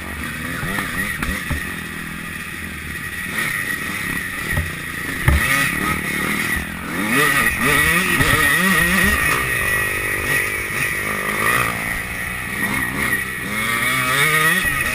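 Motocross bike engine heard from a camera mounted on the bike, revving up and down over and over as the rider accelerates and backs off, with steady wind and mechanical hiss, and a single sharp knock about five seconds in.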